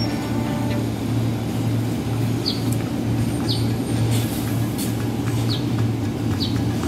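Steady low electrical hum of an electric commuter train (KRL), with short, falling high chirps about once a second.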